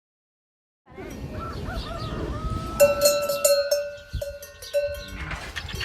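Silence for about a second, then animal calls over outdoor ambience, with several sustained pitched calls in the middle.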